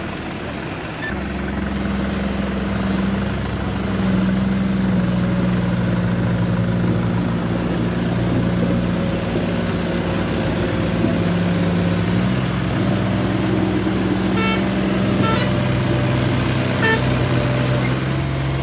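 A tractor's diesel engine runs under load as it works along a rough, rock-strewn dirt road. Its note gets louder about four seconds in and changes pitch a little past the middle. Near the end come a few short, high beeps.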